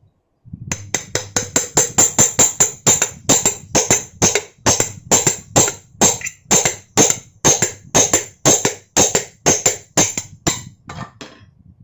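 Small hammer tapping repeatedly on a ceiling fan motor's shaft, about three blows a second with a metallic ring, growing weaker near the end. The blows drive the shaft down to free the rotor from the fan body.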